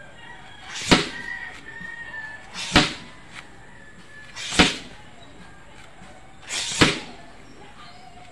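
A bamboo training stick swung hard four times, about one stroke every two seconds, each a short swish ending in a sharp smack against a hanging rubber tyre.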